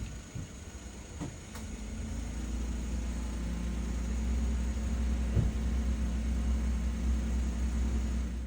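A vehicle engine runs close by with a steady low hum. It swells in over the first two seconds and then holds at a constant level, with a couple of light knocks along the way.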